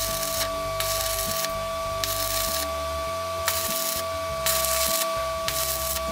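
Electric arc welding on steel nuts, the arc crackling in about six short bursts roughly a second apart as the rod is struck again and again to tack the nuts together. A steady whine runs underneath.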